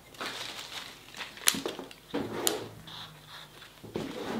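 Leaves and ivy stems rustling as they are handled and trimmed with florist's scissors, with two sharp snips about a second apart near the middle.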